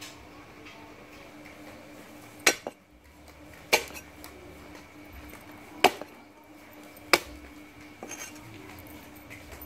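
Steel cleaver chopping down onto a wooden chopping board. There are four sharp chops, a second or two apart, the first a quick double, followed by a few lighter taps near the end.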